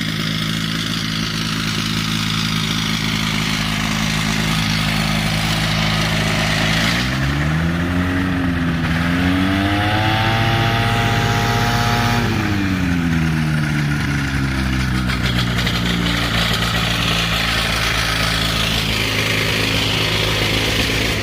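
Light aircraft's piston engine running steadily under a rushing noise of wind. About seven seconds in the engine speeds up, holds the higher pitch for a few seconds, and eases back down about twelve to fourteen seconds in.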